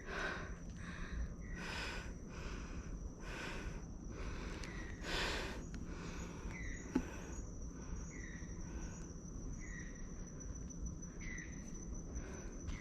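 Rainforest ambience: a steady high insect trill, with a short call repeating about every second and a half. A few brief rustling noises come in the first half, the loudest about five seconds in.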